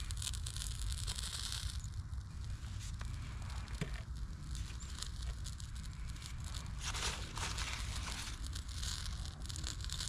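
Small fire of a burning wax-coated cedar tinder bundle crackling, with light clicks as split kindling sticks are set down around it. Surges of hiss come near the start and again near the end.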